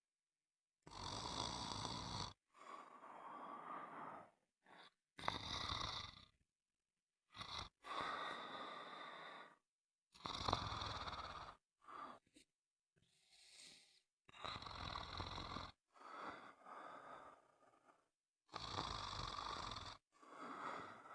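Snoring: a run of separate snoring breaths, each lasting about one to two seconds, coming one every second or two with dead silence between them.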